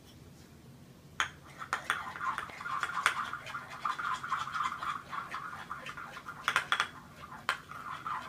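A spoon stirring and scraping a glue slime mixture in a small bowl, with sharp taps of the spoon against the bowl's side. It starts about a second in, goes on in uneven strokes, and eases off near the end.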